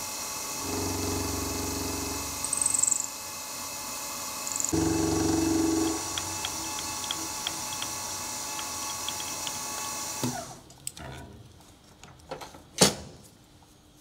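Drill-milling machine running while it mills at a 2 mm depth of cut, with two louder stretches of humming a few seconds apart and a brief high squeal. About ten seconds in the machine shuts off and its noise falls away, followed by a few clicks and one sharp knock near the end.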